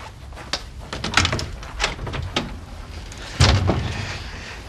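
A wooden door's lock and handle being worked: a series of small clicks and knocks, with a louder thud about three and a half seconds in.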